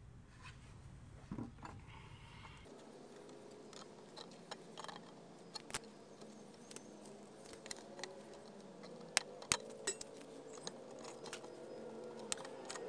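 Light clicks and scrapes of copper wire being handled and twisted with pliers around a steel rebar rod at a plastic bucket's rim, with two sharper clicks about nine seconds in.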